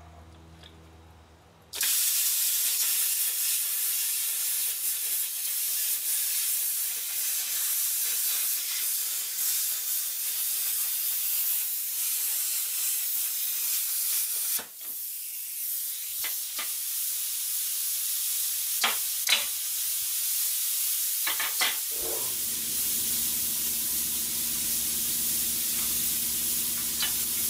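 Plasma cutter cutting steel plate: a loud, steady hiss that starts suddenly about 2 seconds in, breaks off briefly about halfway through and resumes. A few sharp clicks come a little past two thirds of the way in, and a low hum joins under the hiss after that.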